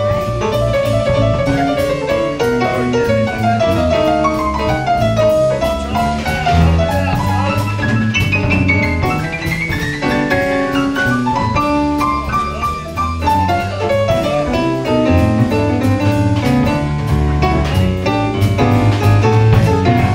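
Live jazz combo of guitar, electric keyboard and drum kit playing an instrumental break, with a melodic lead line running up and down over a steady low bass and drums; no singing.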